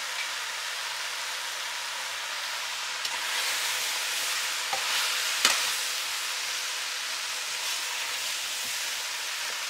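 Beans and sautéed vegetables sizzling in a stainless steel pot while being stirred with a wooden spoon: a steady hiss, with a couple of knocks of the spoon against the pot about five seconds in.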